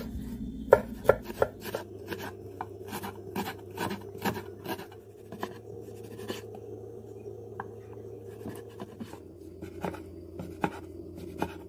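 Kitchen knife chopping vegetables on a wooden cutting board: irregular sharp taps of the blade striking the board, a few a second, thinning out in the second half.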